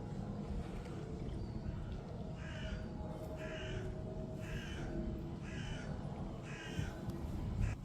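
A bird calling five times, about once a second, over a steady low rumble.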